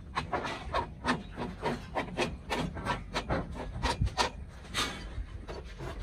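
Carpentry on timber beam formwork: a quick run of short strokes on wood, about three a second, some louder than others.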